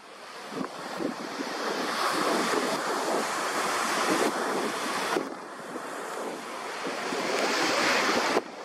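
Embraer E175's two GE CF34-8E turbofan engines at takeoff thrust as the jet rolls down the runway toward the listener: a dense jet rush that builds in loudness, dips briefly about halfway, builds again and drops off abruptly just before the end.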